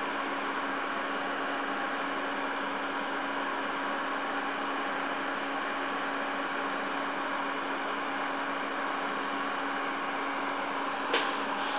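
PC case fan running steadily: an even hiss of moving air over a steady low hum, its airflow straightened so there is no turbulence. A short click near the end.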